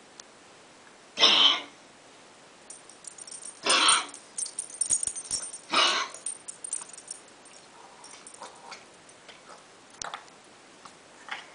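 A dog giving three short breathy huffs about two seconds apart, with faint clicks between them.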